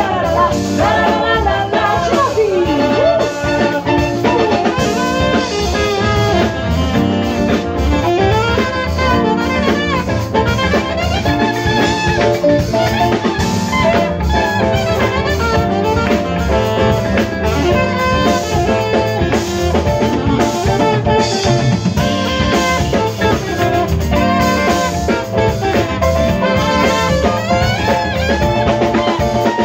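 Live band playing: a horn section of saxophones and trumpet over drum kit, electric bass and keyboard, with singing at times.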